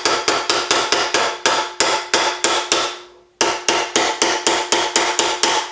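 Rapid hammer blows, about five a second, on a reticulated silver cuff over a curved steel anticlastic stake held in a vise, with the stake ringing under the blows. The hammering stops briefly about three seconds in, then starts again until just before the end.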